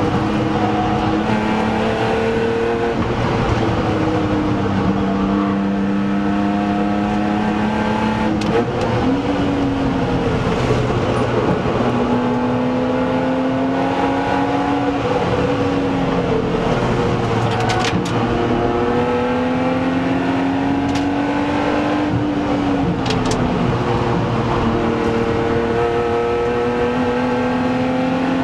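BMW Z3 2.8 Coupé's straight-six engine running hard, heard from inside the cabin, its note dipping and climbing again several times as the car accelerates, lifts and brakes for corners. A few sharp clicks come through about a third of the way in and again later.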